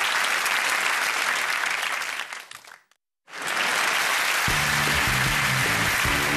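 Studio audience applauding, fading out to a moment of silence about three seconds in, then applause again with music coming in under it about a second later.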